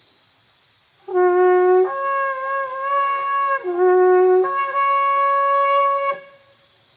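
Shofar blown in one call of about five seconds that steps from a low note up to a higher one, back down, and up again before cutting off.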